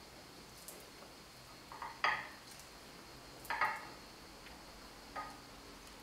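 A few short, light taps and clinks as pitted black olives are set by hand into a stone-coated metal baking pan lined with eggplant slices.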